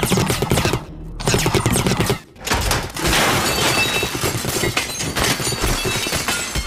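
Rapid barrage of cartoon impact and crash sound effects: booby-trap objects and debris smashing, clattering and breaking against protective suits, with a brief lull about two seconds in.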